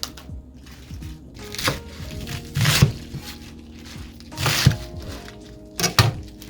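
Background music with steady tones, broken by four short, loud knocks and scrapes of cooking work in the kitchen.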